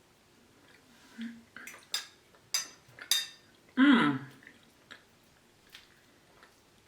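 Cutlery clinking against a dinner plate during a meal: three sharp clinks close together, with a few softer taps around them. Between the clinks and the taps comes a short hum from the diner whose pitch falls.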